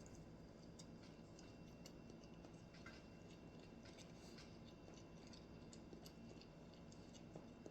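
Near silence over a low steady hum, with faint scattered clicks from someone quietly eating a mini corn dog.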